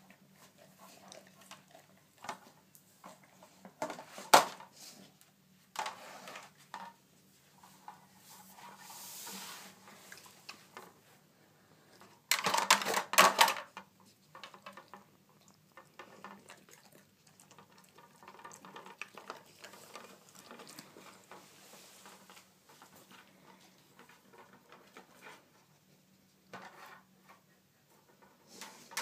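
An Airedale terrier nosing and pawing at a hard plastic treat-puzzle board: scattered clacks and knocks of the plastic, with a sharp knock about four seconds in and a loud run of clattering about twelve seconds in.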